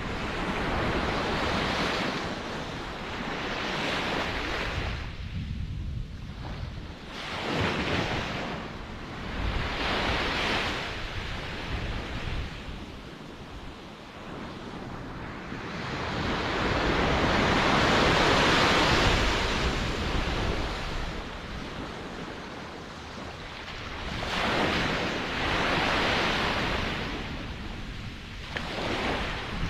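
Ocean waves breaking and washing on the shore, a continuous surf hiss that swells and recedes every few seconds, with the biggest swell about halfway through. Some wind noise on the microphone.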